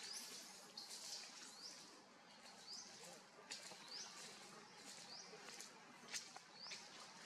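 Faint forest ambience: a bird's short rising chirp repeating about once a second over a faint high hiss, with a single sharp click about six seconds in.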